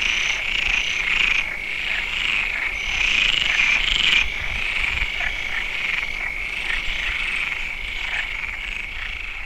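A dense chorus of many frogs calling at once, their overlapping calls merging into a steady high-pitched din that swells and ebbs, easing slightly toward the end.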